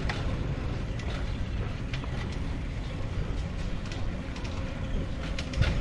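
Wind rumbling on the microphone as a tandem bicycle rolls along a paved path, with scattered light clicks and rattles from the bike.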